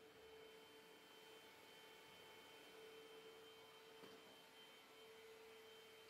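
Near silence: room tone with a faint steady hum and a thin high whine.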